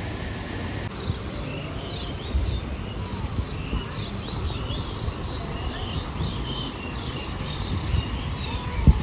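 Many small birds chirping in short, overlapping, rapidly repeated calls, over a steady low rumble; a single thump near the end.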